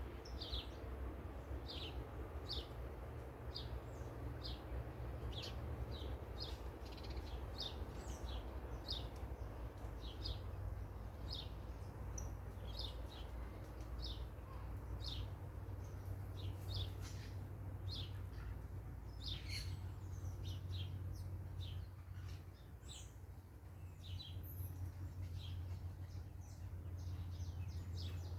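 Parakeets calling: a steady run of short, high chirps, roughly one or two a second, over a low steady rumble.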